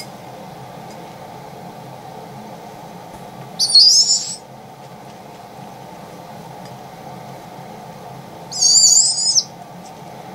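Baby barred owl calling while being hand-fed: two high, wavering, squeaky calls, each under a second long and about five seconds apart.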